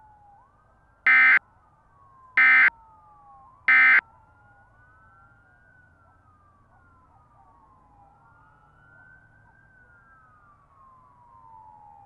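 Three short, loud electronic data bursts about a second and a half apart, matching the Emergency Alert System end-of-message tones. Several sirens wail faintly underneath, rising and falling slowly and overlapping.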